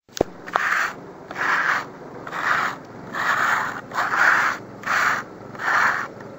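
Steel notched trowel scraping tile adhesive across a wall in repeated strokes, about one a second, with a short click at the start.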